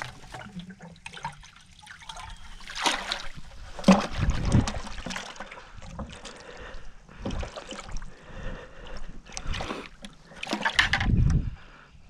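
A plastic bucket scooped into the river, with water splashing and sloshing in irregular bursts, and footsteps through dry grass.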